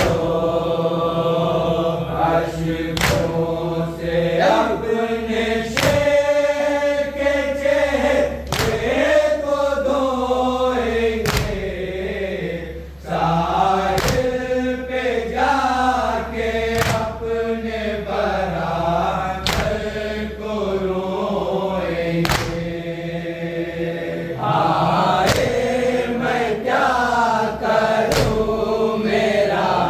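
A group of male voices chanting a noha, a Shia lament for Abbas, in slow unison, with a sharp slap about every three seconds.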